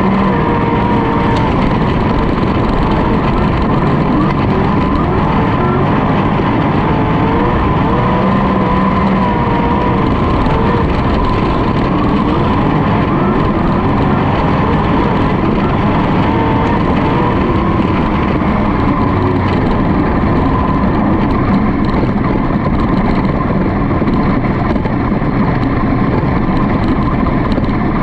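Sprintcar's V8 engine racing, heard on board: loud and steady in level, its pitch wavering up and down with the throttle through the corners, over a dense rush of wind and road noise.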